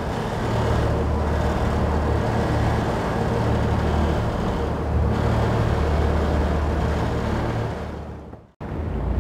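Boat engine running steadily, a low drone under the rush of wind and water; it cuts off suddenly near the end.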